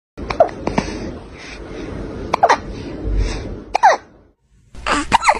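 Domestic cat hiccupping: a run of short, sharp squeaky hics, several falling quickly in pitch, irregularly spaced.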